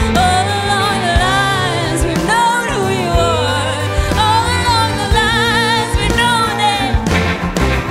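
Live americana band playing: a woman sings long held notes, some with a wide vibrato, over electric guitar, bass and drums. Her voice stops near the end while the band plays on.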